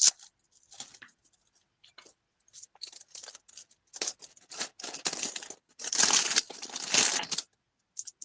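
Plastic bags of diamond painting drills crinkling and rustling as they are handled, in short scattered bursts, loudest about six to seven seconds in.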